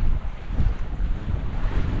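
Wind buffeting the microphone, a gusty low rumble that rises and falls.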